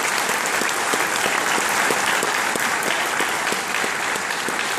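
Audience applause: many people clapping together in a dense, steady mass of claps.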